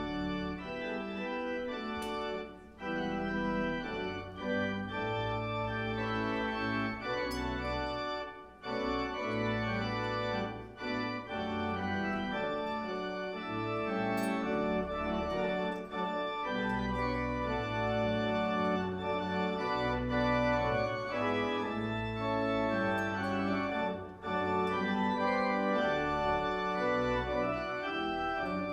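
Church organ playing the closing postlude after the benediction: held chords over a low bass line, shifting every second or so, with a few short breaks between phrases.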